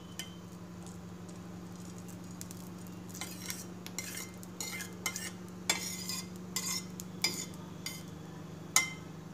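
A spatula scraping and clinking against a stainless steel frying pan as ghee is spread around it, in irregular strokes from about three seconds in, the sharpest near the end. A steady low hum runs underneath.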